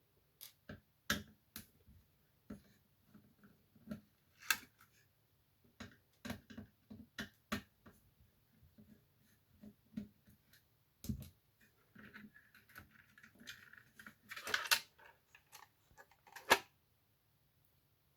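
Irregular clicks and knocks of the casing and parts of a Dictaphone tape dictation machine being handled and taken apart, with a short scraping rustle about two-thirds of the way through and one sharp click near the end.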